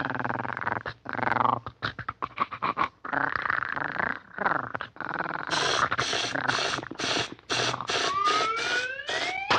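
Cartoon puppy growling and snarling as it tugs with its teeth at a rubber air hose. After about five seconds come a quick run of short even spurts, about three a second, and then a rising whistle near the end, as the compressed-air line fills and the paint sprayer goes off.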